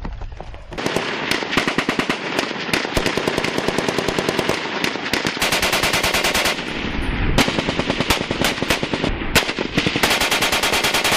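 Machine-gun fire in rapid bursts, starting about a second in, with long unbroken bursts around the middle and again near the end.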